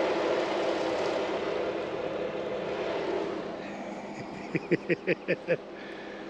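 Jeep engine idling steadily close by, fading after about three seconds as it is left behind. Then a man laughs in six short bursts, about four and a half seconds in.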